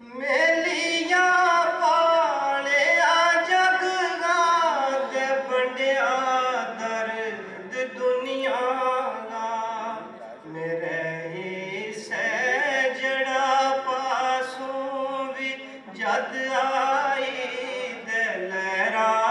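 A man singing a Gojri ghazal in long, wavering held notes, phrase after phrase.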